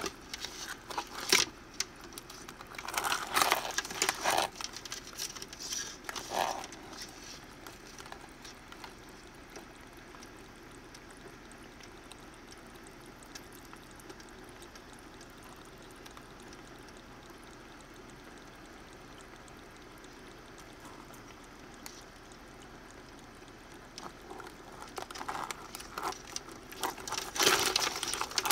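A pot of seasoned blue crabs steaming, a steady hiss throughout. Louder bursts of rustling and clicking come in the first few seconds and again near the end.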